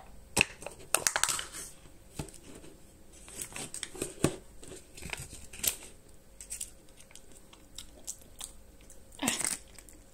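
Foil seal being peeled off a plastic yogurt tub, crinkling and tearing in short bursts with a few small sharp ticks.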